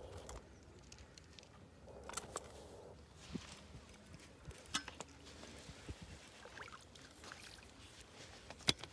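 Fishing tackle being handled at the water's edge: scattered clicks and rustling, with one sharp click near the end.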